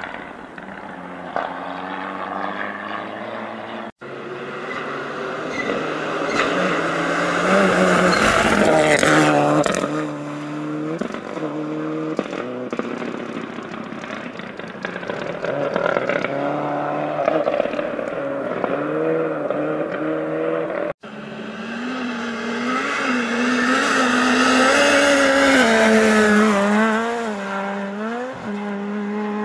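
Rally cars on a snowy gravel stage, passing one at a time. Each engine revs up and down through gear changes as the car approaches, growing loud as it goes by. The sound cuts off abruptly twice between cars.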